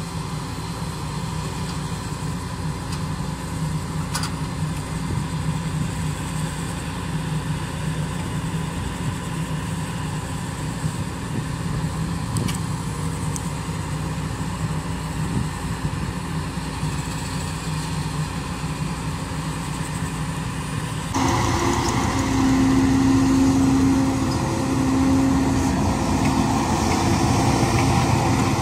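Heavy diesel harvest machinery engine running steadily. About 21 seconds in the sound switches abruptly to a louder engine with a steady droning hum.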